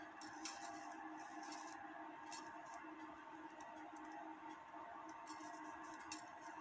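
A few faint, irregular clicks from a cuckoo clock movement being handled and worked by hand, with the sharpest about half a second in and near the end, over a steady faint hum.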